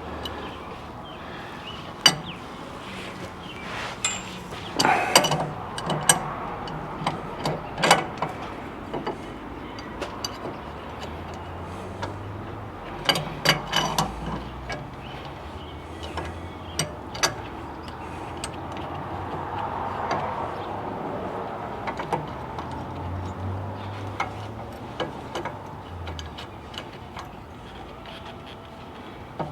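Irregular metallic clicks and clinks of hand tools working on steering parts, some coming in quick clusters and others singly, with pauses between.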